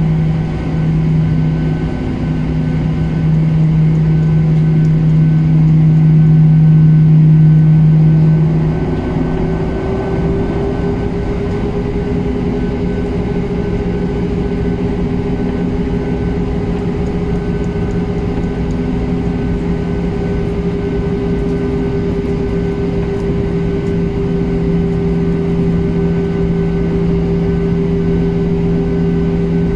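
Jet airliner's engines heard from inside the cabin as the plane taxis, a steady hum. About nine seconds in, the lower drone fades and a higher tone rises a little and then holds steady.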